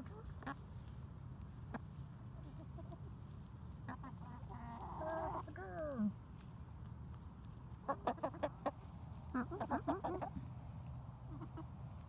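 Hens clucking: a drawn-out call that falls in pitch at its end about halfway through, then two quick runs of short clucks a few seconds later.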